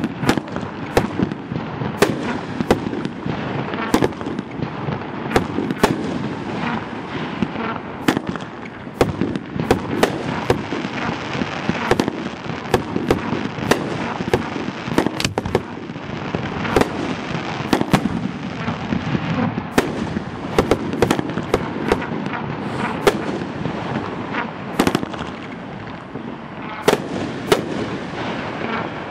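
A 500 g multi-shot fireworks cake firing white strobe shells. Sharp bangs come every second or two over a steady crackling hiss of the strobing stars.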